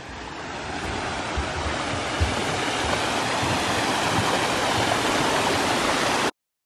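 Small rock waterfall cascading into a pool: a steady rush of splashing water that grows louder over the first few seconds, then cuts off suddenly near the end.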